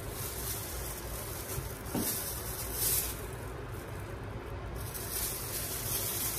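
Oil sizzling steadily as Vietnamese spring rolls (chả giò) fry in a pan, with a couple of brief knocks about two and three seconds in.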